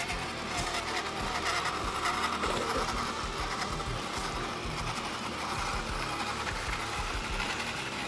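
Electric motor and gear drivetrain of a 1/10-scale RC crawler truck whining as it drives, the pitch wavering with the throttle.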